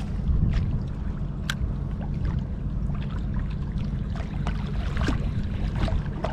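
Steady low wind rumble on the microphone, with the sea lapping at the rocks and a few light clicks scattered through.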